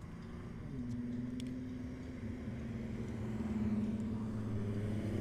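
A car's engine holds a steady note and grows gradually louder as the car approaches.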